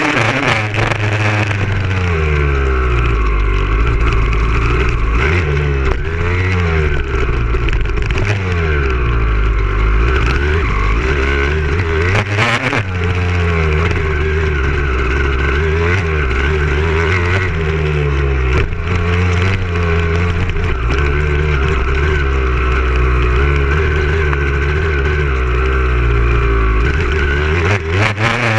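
Motocross dirt bike engine heard on board, revving up and dropping back again and again as the bike is ridden around the track, with a thump about halfway through.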